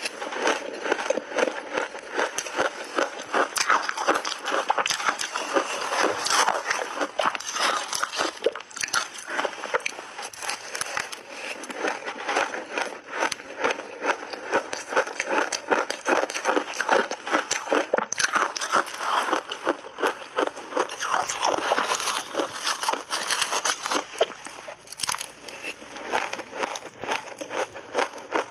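Close-up chewing of crunchy shaved ice dusted with milk powder: a dense, continuous run of rapid crunches and crackles.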